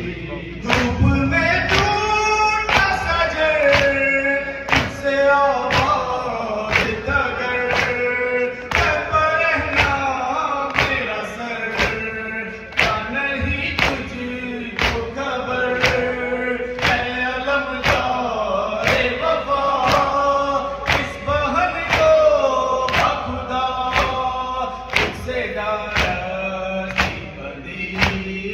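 A noha (Shia mourning lament) sung by male reciters with a crowd of men singing along. Under it runs unison chest-beating (matam): sharp hand slaps at a steady beat of about three every two seconds.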